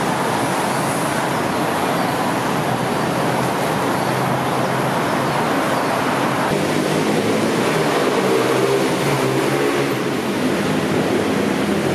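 Steady city road traffic: a continuous wash of engines and tyres, with passing engine notes standing out from about halfway through.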